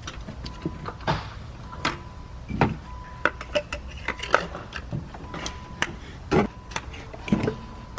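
Scattered clicks, taps and knocks of hand work in a car's engine bay: a hose clamp being fitted onto a PCV hose with tools. A faint steady high tone comes and goes under the clicks.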